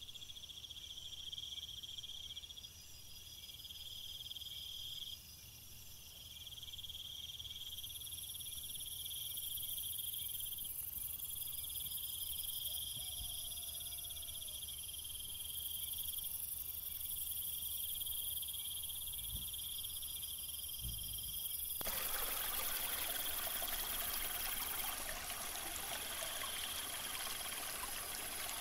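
Insects trilling in steady, high, pulsing choruses. About three-quarters of the way through, the splashing of a small artificial rock waterfall comes in close and becomes the loudest sound.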